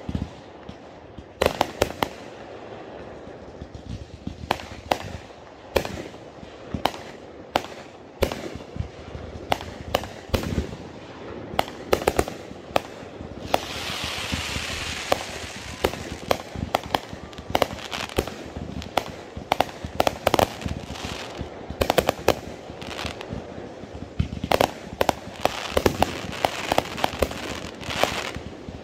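Consumer aerial fireworks going off: a rapid, irregular run of sharp bangs from launches and bursts, with a spell of hissing crackle about halfway through.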